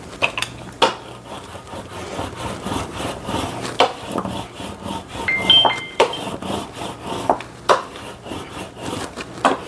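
Hand brayer (rubber roller) rolled back and forth over a laminated sticker sheet on a desk, a repeated rubbing with several sharp knocks, pressing the laminate flat onto the sticker paper. A brief high squeak sounds about midway.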